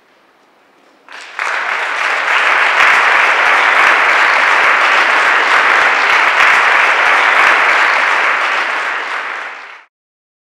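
Audience applauding, a dense clatter of many hands clapping that starts about a second in and stops abruptly near the end.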